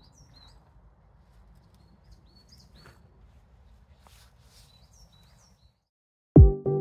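Faint birds chirping in short calls over a low outdoor rumble, with a few soft rustles. The sound cuts off near the end, and loud music with a sharp drum beat starts abruptly.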